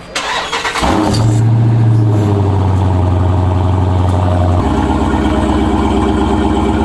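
Dodge V8 engine starting: a short crank about a second in catches into a loud, steady high idle, which drops lower and settles about four and a half seconds in.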